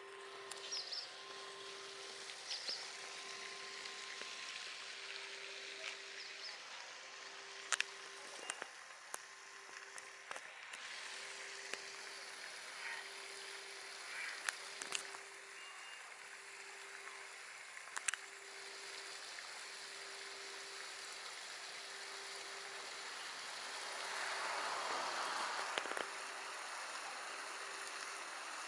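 Waterside ambience: small waves lapping against a rocky shore as a steady hiss, with a faint low tone pulsing on and off at an even rate and a few sharp clicks. A louder surge of water comes a few seconds before the end.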